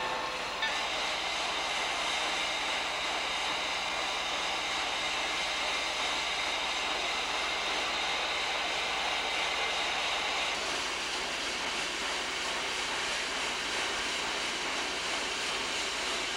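Steam train running, a steady rushing noise with a hissing edge that eases off about ten seconds in; the last of a whistle blast cuts off right at the start.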